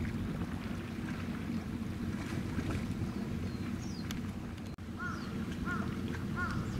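Steady low rumble of a destroyer escort's engines and wake as it passes. From about five seconds in come four short, arching bird calls, roughly 0.7 s apart.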